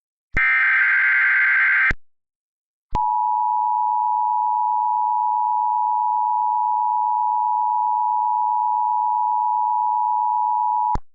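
Emergency Alert System tones: a harsh, buzzy SAME header data burst lasting about a second and a half, then after a short pause the two-tone EAS attention signal, a steady dual tone held for about eight seconds before it cuts off.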